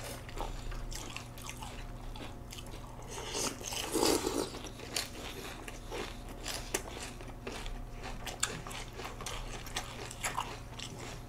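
Two people crunching and chewing Special K Original cereal flakes soaked in milk, close to the microphone: many small crisp crunches, with a louder one about four seconds in.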